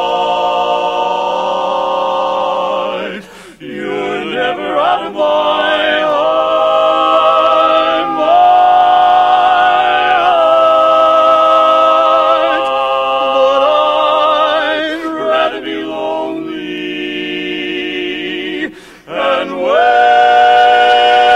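Male barbershop quartet singing a cappella in close four-part harmony, holding long chords. The singing breaks off briefly twice, about three and a half seconds in and near the end.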